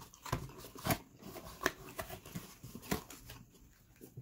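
Light handling noise of a cardboard chicken nugget box being moved, with a few sharp, irregular clicks and faint rustling.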